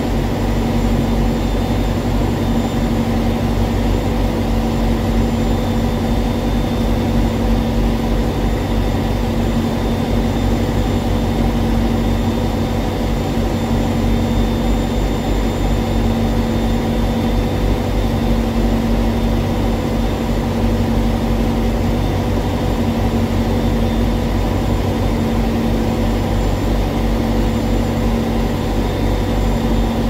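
Diesel engine idling steadily: an unbroken low rumble with a constant hum.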